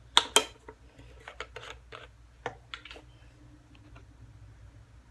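Small hard objects being handled: two loud sharp clicks in the first half second, then lighter scattered taps and clicks over the next couple of seconds.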